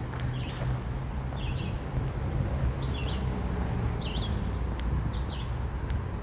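A songbird chirping, short high notes repeated about once a second, over a steady low rumble of road traffic.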